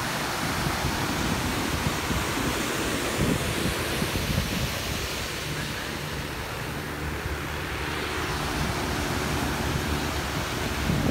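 Ocean surf washing in steadily, with wind buffeting the microphone in low rumbles.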